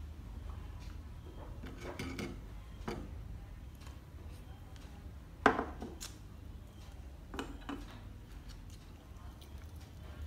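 Chopsticks and a small plastic bowl clicking and knocking against each other and the wooden table, a few short knocks with the loudest about five and a half seconds in.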